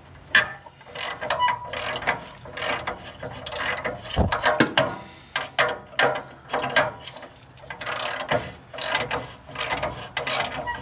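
Hand ratchet wrench clicking in short irregular runs as it is worked back and forth, backing rusted nuts off exhaust studs.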